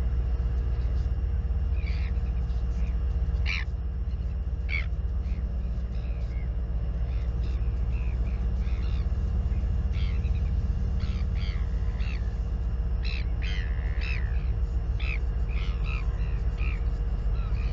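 Wind rumbling on an outdoor microphone, with many short bird calls over it, coming thicker after about ten seconds.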